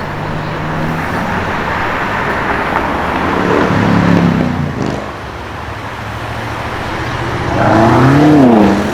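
BMW M5 F90's twin-turbo V8 running, its pitch climbing about four seconds in and again near the end, where it is loudest, rising and then falling back.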